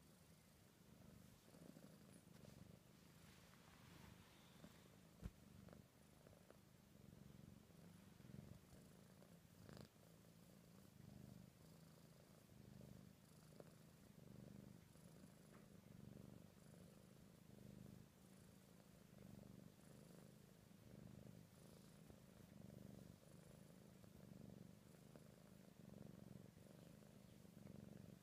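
Ragdoll kitten purring steadily, a faint low rumble that swells and eases about once a second. A brief click sounds about five seconds in.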